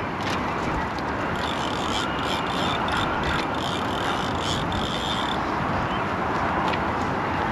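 Penn Surfblaster fixed-spool surf reel worked against a heavily loaded line, a rhythmic mechanical clicking from just over a second in until about five seconds in; the line has crossed another angler's line and is snagged. Wind noise on the microphone underneath.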